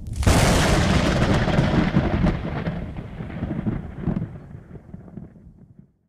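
Thunderclap: a sharp crack just after the start, then a rumble that fades away over about five seconds.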